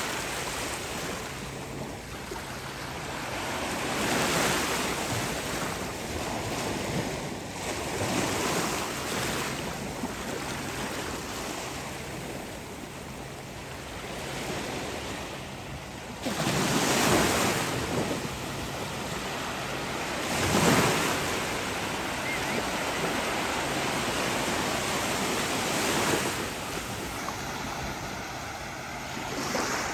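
Small ocean waves breaking and washing up on the shore, a steady surf hiss that swells every few seconds, loudest twice in the middle.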